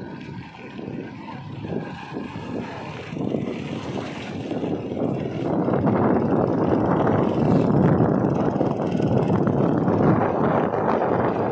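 Motorcycle engine and road noise heard from a vehicle moving alongside, a dense rumble that gets louder about halfway through.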